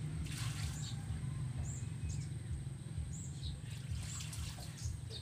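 Small birds chirping, short high calls several times, over a steady low rumble.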